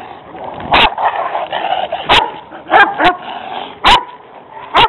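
Dogs barking in a face-off between a Rottweiler and two stray dogs: about six loud, sharp barks a second or so apart, with quieter barking in between.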